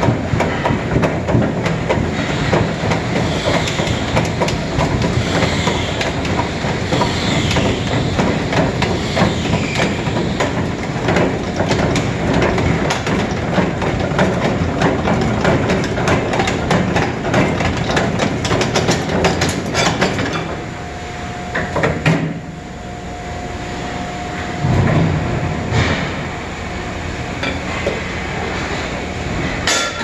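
ERP 900 fridge-compressor cutter spinning a sealed refrigerator compressor in its chuck as it cuts through the steel shell: a loud, dense clatter and grinding of metal. About 20 seconds in the clatter stops, leaving a quieter steady machine noise with a thin whine, broken by a single knock.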